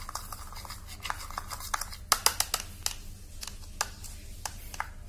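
Steel spoon scraping and clicking against a small bowl while stirring sugar, ghee and honey into a gritty scrub paste, in irregular strokes that come thickest about two seconds in.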